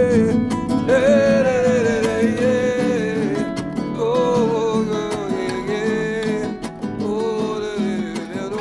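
Music: acoustic guitar accompaniment under a held, gliding melody line in phrases of a second or two, with no words.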